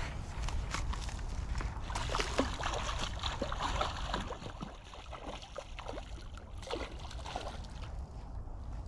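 Creek water sloshing and splashing in short irregular bursts, busiest in the first four seconds and then thinning out, over a steady low rumble.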